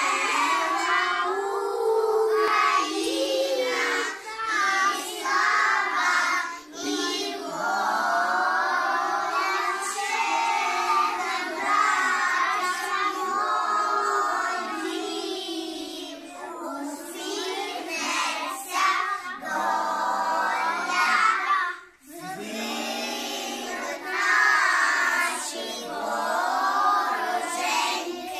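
A group of young children singing a song together in chorus, with a short break between phrases about two-thirds of the way through.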